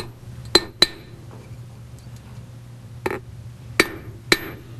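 Cross-peen hammer striking copper stock on a steel anvil, drawing out a taper. A couple of quick blows near the start, a pause, then blows about every half second from about three seconds in, each with a short metallic ring.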